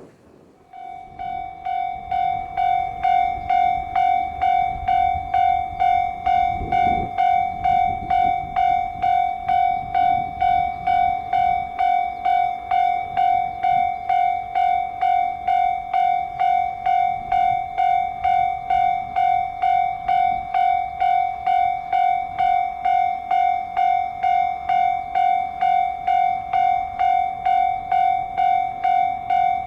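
Japanese railway level-crossing alarm ringing, starting about a second in and sounding a steady electronic tone in even pulses, about one and a half a second: the warning that a train is approaching the crossing. A low rumble of wind sits underneath.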